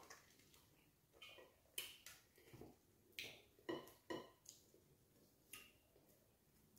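Faint eating sounds of wheat fufu with banga soup eaten by hand: about ten short, wet clicks and smacks of chewing and of fingers in the food, spaced unevenly.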